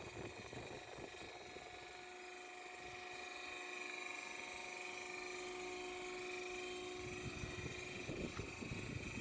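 Band-saw machine running with a steady whine of several held tones over a low rumble, the rumble growing rougher in the last couple of seconds.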